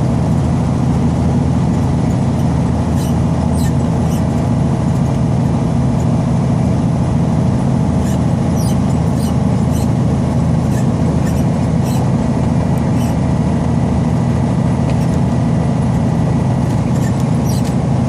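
Steady low drone of a semi-truck's diesel engine and road noise heard inside the cab, the truck loaded close to 80,000 lb on a steep downgrade. Scattered short high squeaks and ticks come through over it.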